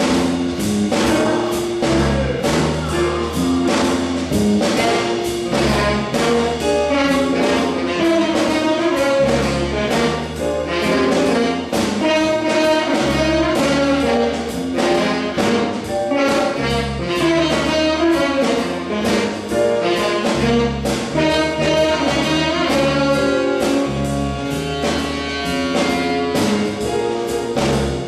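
Live jazz big band playing: trumpets, trombones and saxophones voiced together over a drum kit keeping a steady beat.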